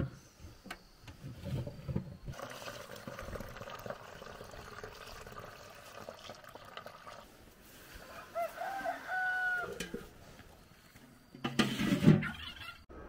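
Liquid ayahuasca brew poured through a mesh strainer into a plastic jug, heard as a steady hiss. A rooster crows once, a little past the middle. Near the end comes a loud burst of handling noise.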